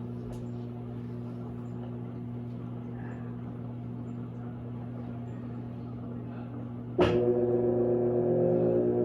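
Electrolux LAC16 top-load washing machine with a 1/4 hp WEG motor, running with a steady electrical hum. About seven seconds in there is a sharp clunk, and the motor starts up with a louder, fuller hum.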